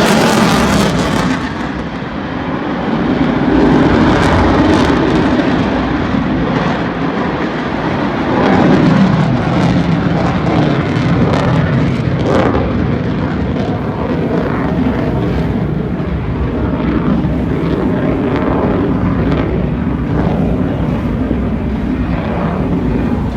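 Jet noise from an F-22 Raptor's twin Pratt & Whitney F119 afterburning turbofans during a display pass. A loud roar loses its high hiss about a second in and carries on as a steady, deep rumble with scattered crackles.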